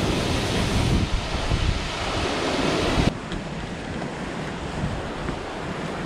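Waterfall running strong in high rainy-season flow, a steady rush of falling water. About three seconds in it cuts off abruptly to a quieter, duller noise with wind on the microphone.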